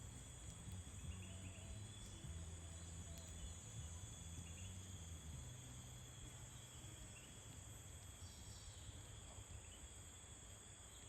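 Faint, steady high-pitched chorus of jungle insects such as crickets, over a low hum.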